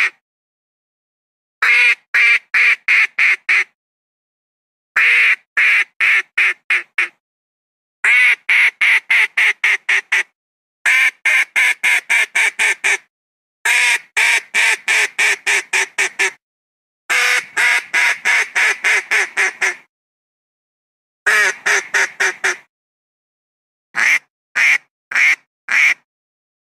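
Philippine duck (Philippine mallard) quacking in repeated series of rapid quacks, about four or five a second, each series of five to a dozen quacks followed by a pause of about a second; the last series near the end is shorter, with its quacks more widely spaced. A duck-call recording played as a hunting lure to bring wild ducks down.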